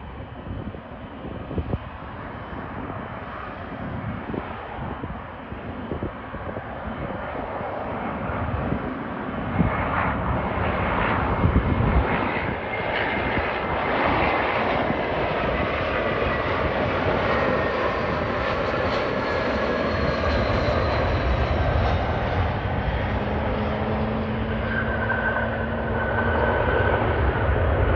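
Airbus A321 jet airliner flying past, its engine noise growing louder over the first dozen seconds and then holding. Whining tones glide in pitch through the middle, and a deep rumble swells near the end.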